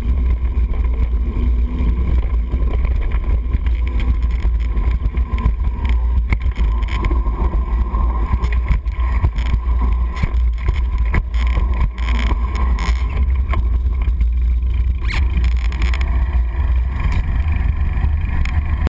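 Wind rumbling on the microphone of an action camera riding along on a bicycle at speed, with frequent small knocks and rattles from the bike jolting over rough ground.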